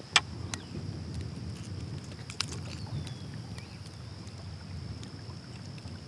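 Small clicks and taps of fishing pliers working a hook free from a caught smallmouth bass. The sharpest click comes just after the start, with a few lighter ones a couple of seconds in. Under them is a steady low rumble of wind and water around the kayak.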